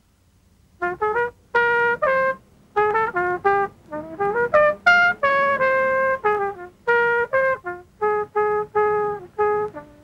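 Unaccompanied jazz trumpet playing a slow melodic line in short phrases of separate held notes, starting a little under a second in.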